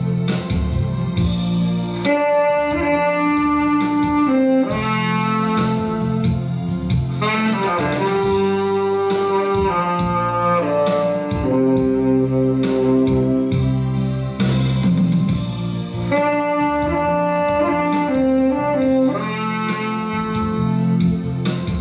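Tenor saxophone playing a slow ballad melody in long held notes, with a quick run of notes about a third of the way in, over a backing track with guitar.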